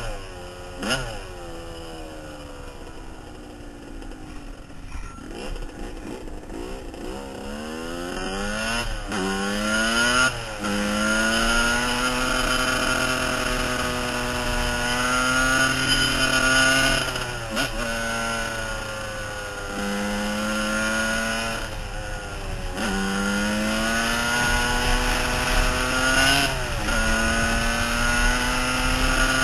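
Suzuki RM80 two-stroke dirt bike engine under a rider's throttle. It gives a couple of quick blips at the start and runs at low revs for several seconds. From about eight seconds in it revs up in climbing sweeps, then holds high, steady revs, with several brief drops in pitch when the throttle is eased.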